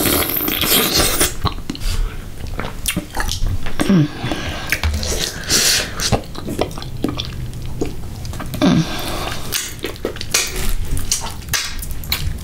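Close-miked eating: wet slurps, lip smacks and sucking of mussels in sauce, with many small clicks of spoons and shells against the dishes.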